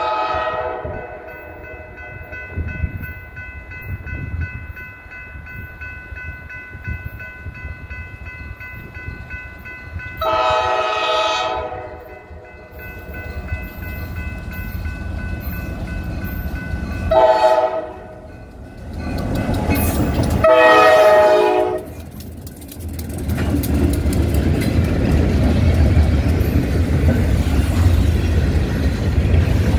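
Norfolk Southern freight locomotive's air horn sounding the grade-crossing signal as the train approaches: long, long, short, long blasts, each a multi-note chord. From about 20 seconds in, the diesel locomotives and the freight cars rumble past, loud over the last several seconds.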